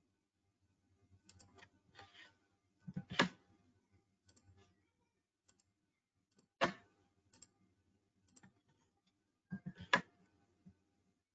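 Computer mouse clicking: three louder clicks about three, six and a half and ten seconds in, with fainter clicks between.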